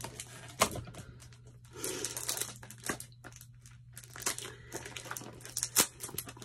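Plastic wrapping on a boxed perfume bottle being torn and crinkled open by hand: a run of irregular crackles, with sharper snaps about half a second in and near the end.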